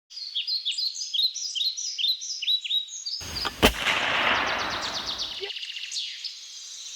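Birds chirping in quick, repeated downward notes. Then a single sharp shot from a PCP air pistol about three and a half seconds in, inside a rush of noise that fades about two seconds later.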